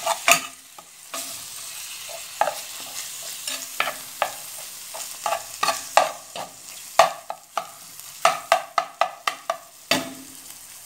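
Metal spoon stirring ground beef in a glazed clay cazuela, with irregular scrapes and clinks against the pot. A faint steady sizzle from the meat cooking over low heat runs underneath.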